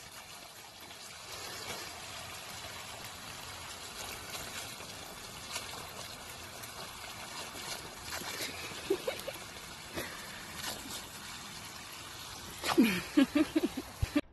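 Garden hose spraying a steady stream of water onto grass, splashing as a dog bites and laps at the jet. Near the end come a few short, louder cries.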